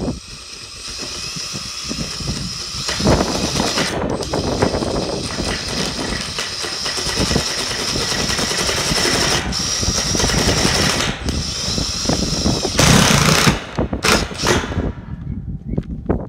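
Cordless power driver running in long stretches as it drives a screw through a corrugated metal roof panel, with a few brief stops and a louder burst near the end before it stops. The screw is backed out and driven again because the panel lifted as it went in.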